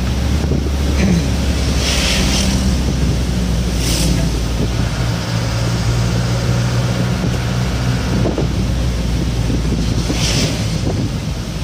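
A bus engine running steadily under way, heard from the driver's cab, over constant tyre and road noise on a wet road. Three short hissing whooshes come as oncoming vehicles pass close by on the wet road.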